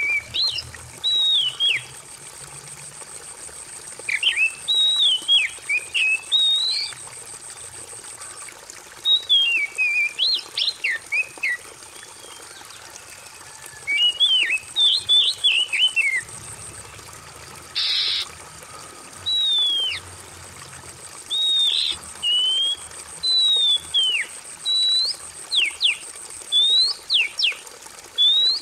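Oriental magpie-robin singing short, varied whistled phrases that slide up and down, in bursts with brief pauses, over a steady background of trickling water.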